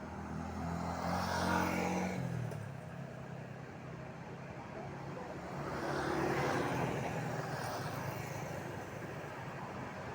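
Street traffic: motor vehicles pass close by one after another, each swelling and fading. The first has an engine hum that drops in pitch as it goes by.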